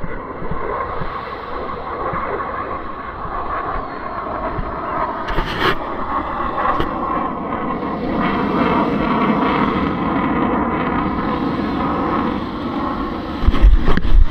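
A jet aircraft's engine roar overhead, building slowly in loudness. Shortly before the end, heavy wind buffeting on the microphone joins in.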